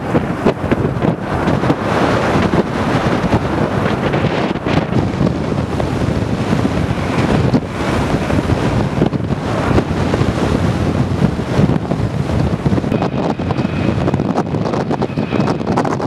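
Strong wind buffeting the microphone in gusts, over the noise of jet airliner engines. A faint, steady high engine whine comes in near the end.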